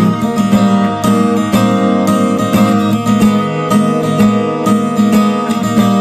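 A Martinez W-91C/SB sunburst cutaway acoustic guitar strummed in a steady rhythm, several chord strokes a second, with the chords ringing on between strokes.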